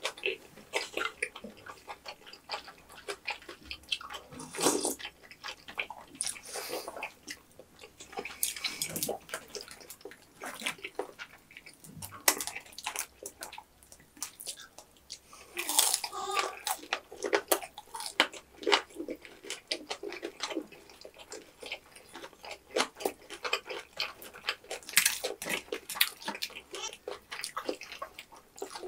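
Close-miked wet chewing and smacking of tteokbokki rice cakes in sticky red sauce, with many short irregular clicks and taps from chopsticks.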